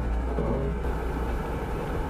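Jeep driving, its engine and drivetrain giving a steady low rumble.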